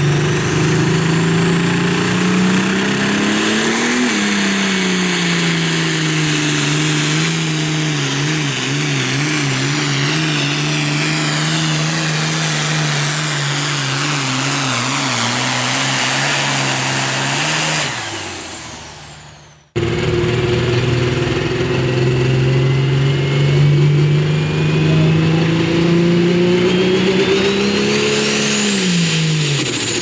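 Case IH 7140 pulling tractor's diesel at full throttle under load on the sled, pitch climbing for the first few seconds, then holding with a wavering stretch, with a high turbocharger whistle over it; the engine falls away and fades at the end of the pull. After an abrupt cut, another pulling tractor's diesel climbs steadily in pitch with a rising turbo whistle, then drops off shortly before the end.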